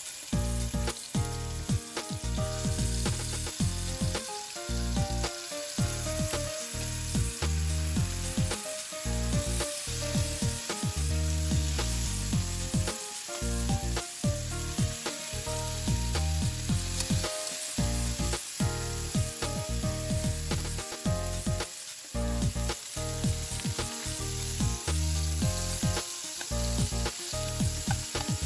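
Lamb loin chops searing in hot olive oil in a skillet: steady sizzling with frequent crackles and pops.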